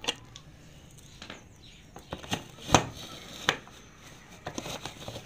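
Aluminium pressure cooker being opened: a series of sharp metal clicks and knocks as the weights come off the vent pipes and the lid is turned and worked free. The loudest knock comes about two and three-quarter seconds in, and there is a quick cluster of clicks near the end.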